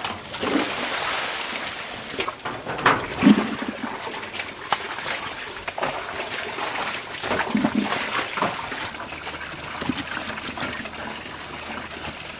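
Water trickling and splashing, with scattered knocks and handling sounds.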